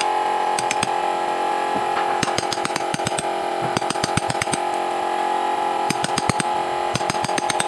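Quick clusters of light, sharp taps, typical of a mallet driving a wood-carving chisel, over a steady hum.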